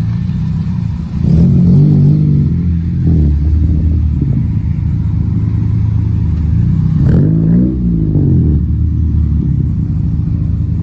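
Car engine idling with a steady low rumble, revved briefly twice: about a second in and again about seven seconds in, the pitch rising and falling back each time.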